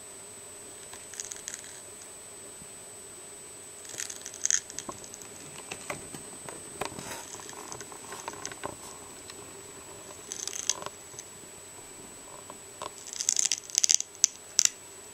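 Giant African land snail (Achatina fulica) rasping an eggshell with its radula: irregular clusters of dry, scratchy crackles and clicks, loudest near the end.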